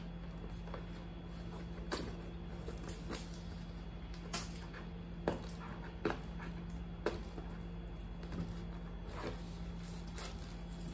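Fingers picking and scratching at the taped flap of a cardboard box, giving scattered light taps and clicks every second or so, over a steady low hum.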